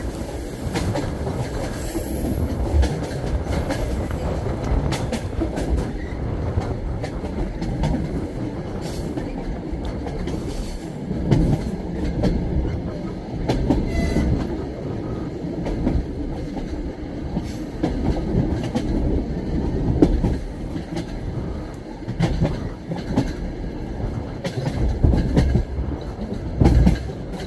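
Passenger train's wheels clattering over the rail joints: a steady low rumble with recurring clickety-clack knocks.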